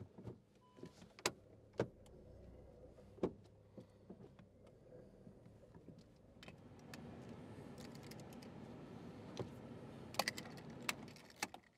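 Faint location sound: a few separate sharp clicks, a low steady rumble that builds from about halfway, and a quick run of clicks near the end.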